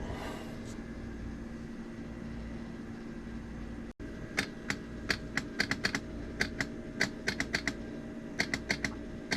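Quick, irregular clicking of keys or buttons being pressed, about twenty clicks in bursts starting about four seconds in, over a steady low hum.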